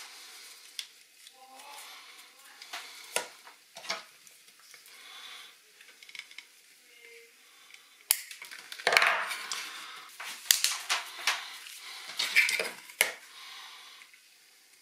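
Metal sieve mesh being bent and crimped with pliers onto the end of a plastic waste pipe: scattered light metallic clicks and scraping, busier for a few seconds in the second half.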